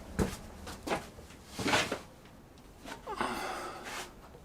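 Hand tools knocking against the metal of a drill press's pulley assembly: three short knocks in the first two seconds, then about a second of scraping and rattling near the end.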